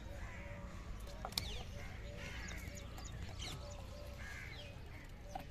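Birds calling repeatedly in short calls and chirps over a low steady rumble, with one sharp click about a second and a half in.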